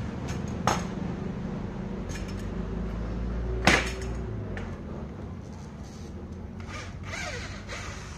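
A wooden window frame being handled on a tiled floor: a click under a second in, then one sharp knock just before the middle as the frame is set down on the tiles, followed near the end by small scraping and tapping sounds at the hinge corner. A steady low hum runs underneath.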